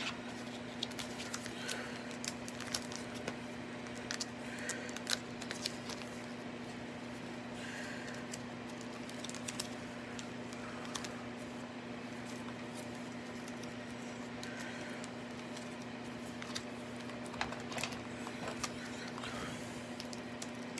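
Scattered light clicks and taps of hands handling trading cards and their packaging, over a steady low hum.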